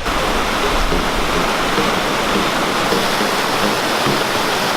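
Steady rushing of stream water, an even hiss without pause.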